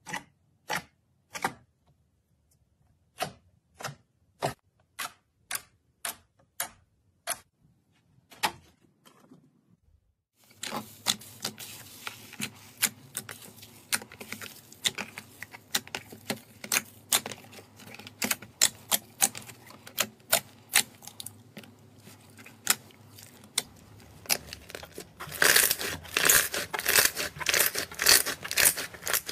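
Slime being pressed and kneaded by hand: first about a dozen separate crisp crackles from a layered avalanche slime, then a thick, glossy slime giving a continuous stream of squishy clicks and pops, densest and loudest near the end.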